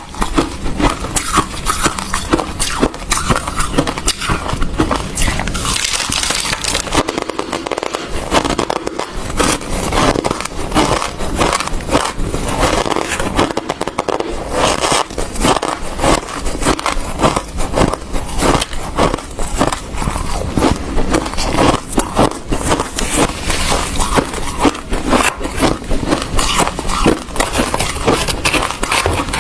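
Ice being bitten and chewed close to the microphone: a continuous run of loud, rapid, crisp crunches and cracks.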